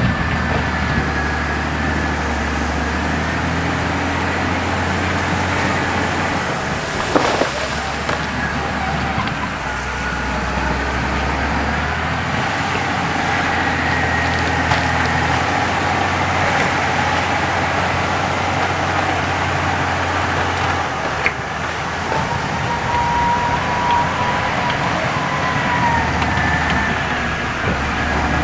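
CAT D6 crawler bulldozer's diesel engine running under changing load as it pushes, with a thin high-pitched whine at times and a sharp crack about seven seconds in.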